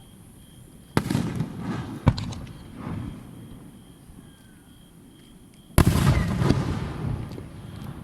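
Aerial fireworks shells bursting: one about a second in with a sharper bang just after, and a louder burst near six seconds in, each trailing off over a second or so.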